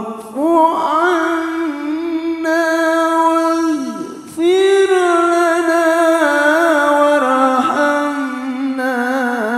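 A man's voice reciting the Qur'an in melodic tilawah style into a hand microphone, drawing out long held notes with wavering ornaments and pausing briefly for breath about four seconds in.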